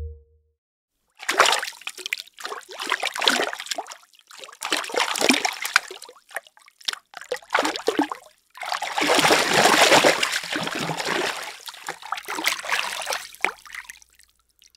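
A swimmer's strokes splashing and sloshing through water. Irregular splashes start about a second in, a longer, heavier churn of water comes about two-thirds of the way through, and it thins out near the end.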